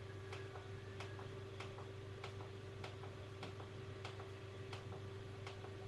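Regular sharp ticking, a little under two ticks a second, over a steady low electrical hum.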